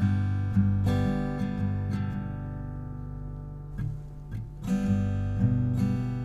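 Background music: acoustic guitar strumming chords, thinning out in the middle and picking up again about five seconds in.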